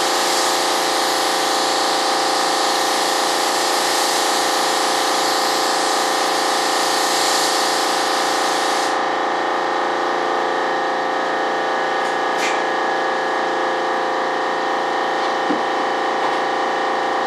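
Air spray gun hissing as a coat of primer is sprayed, cutting off abruptly about nine seconds in, over a steady motor hum. A brief click comes a few seconds after the spraying stops.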